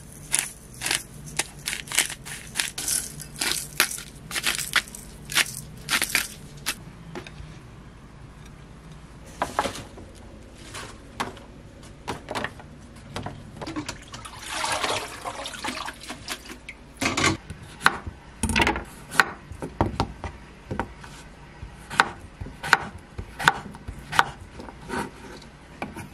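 Kitchen food-prep sounds: a quick run of small taps and clicks at first, a short burst of running water from a tap over salad greens in a plastic colander about halfway through, then knocks of a knife on a wooden cutting board near the end.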